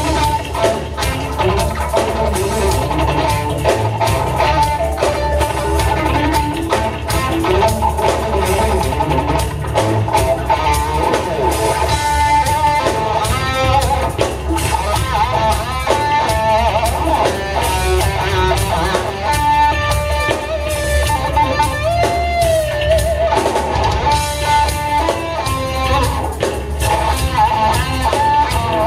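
Instrumental rock trio playing live: a lead electric guitar melody with pitch bends over bass and drum kit.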